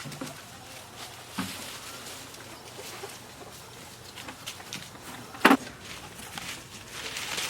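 Scattered light knocks and rustling, with one sharp loud clack about five and a half seconds in.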